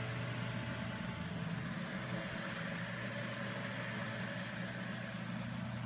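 Antique Westinghouse three-speed electric desk fan running steadily, freshly lubricated: a low motor hum under the even whoosh of the spinning blades.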